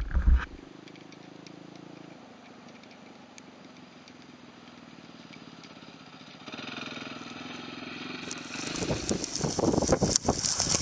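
Distant single-cylinder Honda XR dirt bike engine running, faint at first and getting louder about two-thirds of the way in as the bike approaches. Near the end it gives way to gusty wind buffeting the microphone, with rain.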